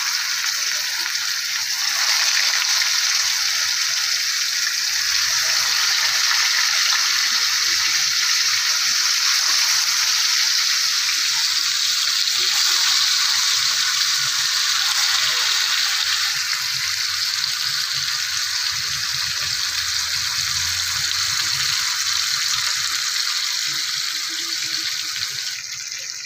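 Masala-coated singhara catfish pieces shallow-frying in hot oil in a pan: a steady sizzle.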